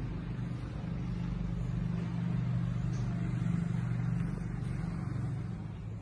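A motor vehicle's engine humming low as it passes, growing louder to a peak around the middle and fading toward the end, over a steady faint hiss of rain.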